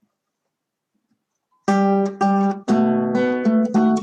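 Near silence, then about a second and a half in an acoustic guitar starts strumming chords, the opening of a song accompaniment.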